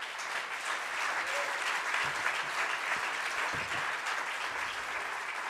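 A large audience applauding, a steady dense clapping.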